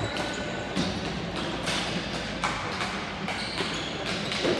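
Ball hockey play: several sharp clacks of sticks striking the hard plastic ball and each other, scattered through a few seconds.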